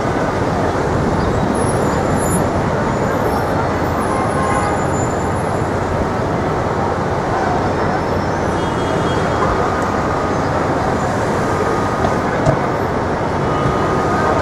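Steady city street traffic noise: a dense, unbroken wash of passing road vehicles.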